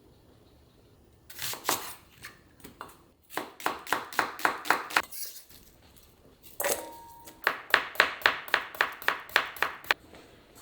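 Knife chopping on a cutting board in quick runs of about five strokes a second, with short pauses between runs.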